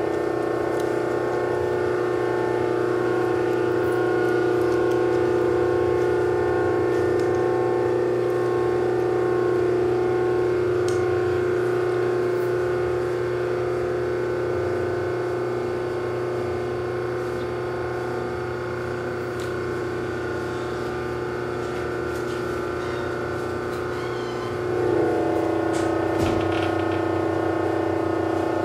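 Steady electrical hum and whine of a 1 HP, 208 V three-phase motor run through a Powerboss soft starter. About 25 seconds in it shifts in pitch and gets a little louder as the controller lowers the motor's voltage in its energy-optimising mode.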